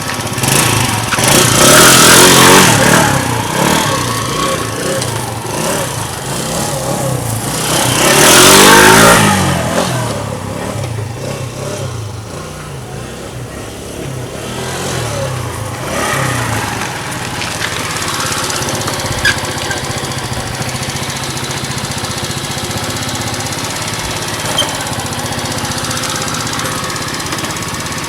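Fada Wind scooter's engine running, revved up hard twice, in the first few seconds and again about eight seconds in, then running steadily at lower revs.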